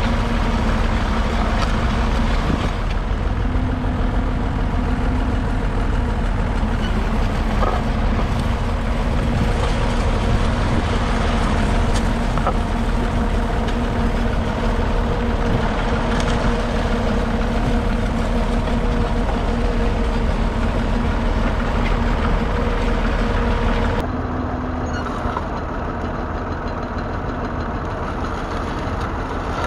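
1968 Massey Ferguson 135's 2.5-litre three-cylinder diesel engine running steadily. About 24 seconds in the sound abruptly becomes quieter and duller.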